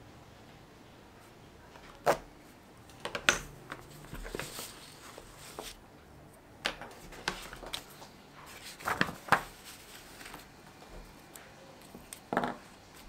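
Paper signatures and hand tools handled on a wooden tabletop: several sharp, short knocks and taps, the loudest about three and nine seconds in, with paper sliding and rustling around four to five seconds in.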